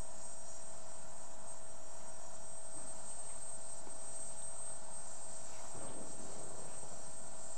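Steady high-pitched electrical whine over constant hiss, with a faint low sound about six seconds in.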